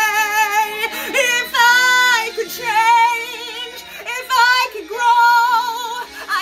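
A woman belting a musical-theatre song: a held note with wide vibrato, then several more sung phrases, each note held with vibrato, over a backing track.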